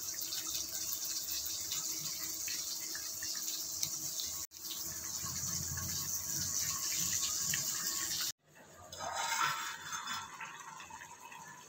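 Prawn and capsicum masala curry bubbling at a steady hissing simmer in a clay pot. The sound drops out abruptly about four and a half seconds in and again about eight seconds in, and after the second break it is quieter.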